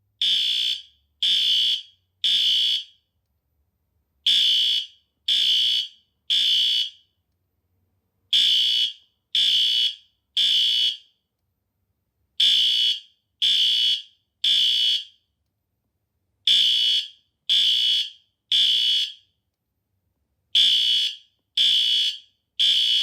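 System Sensor SpectrAlert Advance P2R fire alarm horn sounding the temporal-three evacuation pattern at its high volume setting. It gives three short, loud, shrill horn blasts, then a pause, repeated six times.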